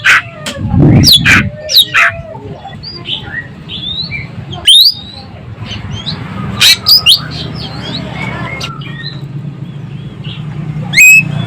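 Ekek keling bird singing loudly: sharp, piercing calls with quick upward-sweeping notes, clustered about a second in, near five seconds, around seven seconds and just before the end, with softer chirps between. A steady low hum runs underneath.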